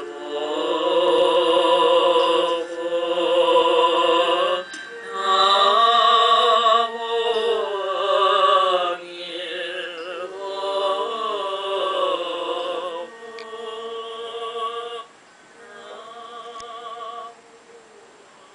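Music with a voice singing long held notes with a wavering vibrato, in phrases separated by short breaks; it grows quieter in the last few seconds and stops shortly before the end.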